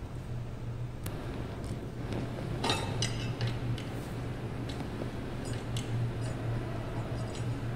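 Small steel screws clinking and clicking against a sheet-metal bracket as they are picked up and fitted by hand, a few scattered light ticks with a cluster about three seconds in, over a steady low hum.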